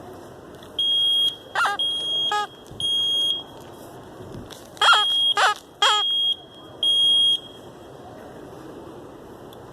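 Smoke alarm beeping a high steady tone in the three-beep fire evacuation pattern: three beeps, a pause of about a second and a half, then three more. Several short squeaks sound over some of the beeps.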